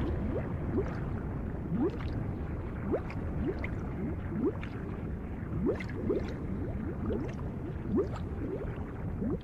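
Animated sound effect of molten lava bubbling: a steady low churning with frequent bubble plops, about two a second, each a short rising blip.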